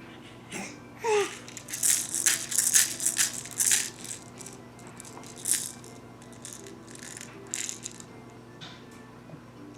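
A rattle being shaken in quick, irregular bursts, busiest in the first few seconds and then in single shakes every couple of seconds. Two short squeaks come about a second in.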